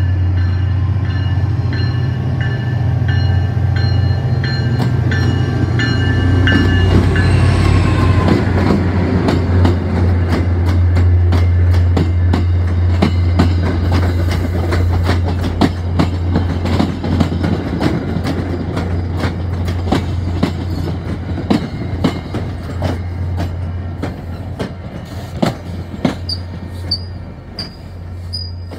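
MBTA commuter rail diesel locomotive running in close past the platform, its engine drone heavy, with a falling pitch as it passes about seven seconds in, while a grade-crossing bell rings early on. The coaches then roll by with a steady run of wheel clicks over rail joints, and a few brief high squeals near the end as the train brakes to a stop.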